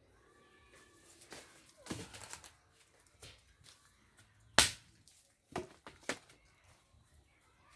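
Sharp cracks and knocks of firewood being broken up. There are a few irregular strikes, with a short cluster about two seconds in and the loudest strike a little past halfway.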